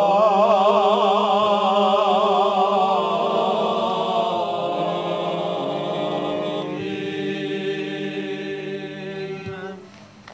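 Orthodox church chanters singing a cappella, several voices holding long notes with vibrato. They move to new notes about four and about seven seconds in, and the sound dies away near the end. This is the sung response that closes the service after the priest's dismissal prayer.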